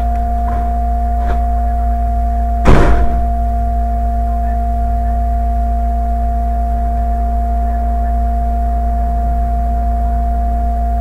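A steady electrical-sounding hum with two constant tones, broken once about three seconds in by a single loud thump.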